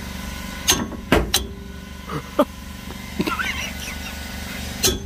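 Hammer striking a wrench to break loose a tight brake caliper bracket bolt, which the mechanics suspect is held with Loctite. There are a few sharp metallic strikes: a pair close together about a second in and another near the end, with lighter knocks between, over a steady low hum.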